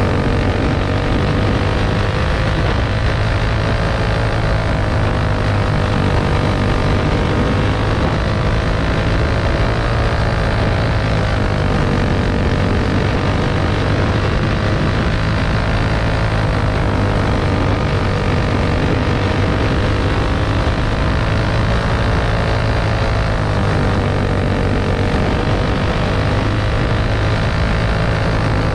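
Champ buggy's race engine running hard under the onboard camera through a dirt-track race, its pitch rising and falling every few seconds.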